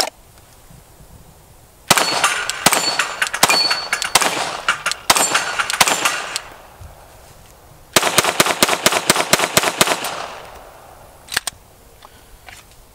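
Compensated 9mm Glock 19 pistol (KKM comp) firing Blazer 147-grain aluminum-case rounds: a string of rapid shots, a short pause, then a second, faster string, followed by a single sharp click. The pistol cycles reliably with this heavy, slow load.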